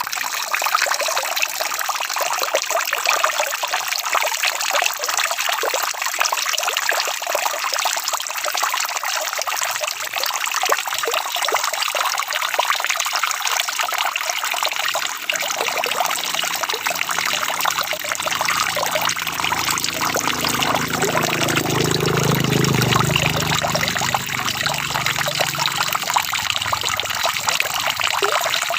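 Steady heavy rain pattering and trickling. About halfway in a low rumble swells up, is loudest about three quarters of the way through, and dies away before the end.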